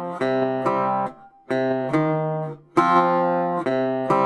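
Background music: an acoustic guitar strumming chords, changing chord every second or so with short breaks between phrases.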